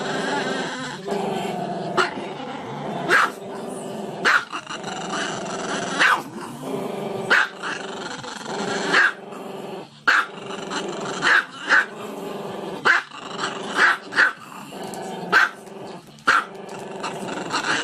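A dog growling without a break, with short sharp barks about once a second, some in quick pairs.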